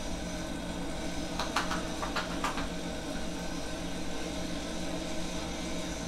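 Steady hum of a wall-mounted air conditioner in a small room. A quick run of four or five soft clicks and rustles comes about one and a half to two and a half seconds in, as hands shift on a seated person's shoulders and clothing.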